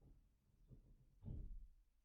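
Faint low bumps and rustles, three in all with the loudest about a second and a half in, over near-silent room tone.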